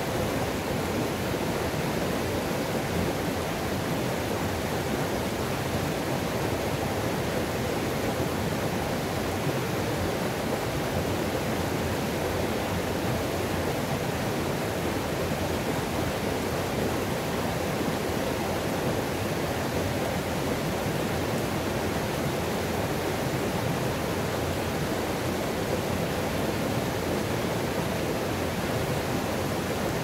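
River Nevis pouring over a small rocky cascade into a pool: a steady, unbroken rush of water.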